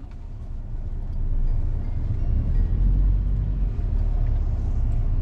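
Car engine and road noise heard from inside the cabin as the car moves off: a steady low rumble that grows louder about a second in.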